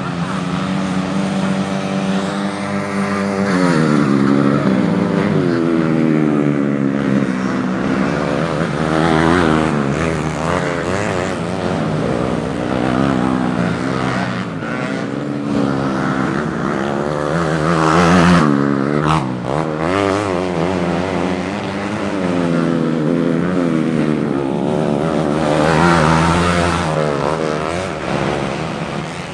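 Modified underbone racing motorcycles at full throttle on a grasstrack, several engines overlapping, their pitch rising and falling again and again as the riders shift and corner. Loudest passes come about two-thirds of the way in and near the end.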